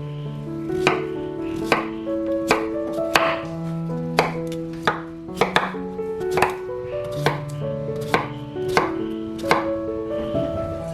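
Knife chopping sweet potatoes on a cutting board, a crisp cut roughly every three-quarters of a second, over background music of sustained notes.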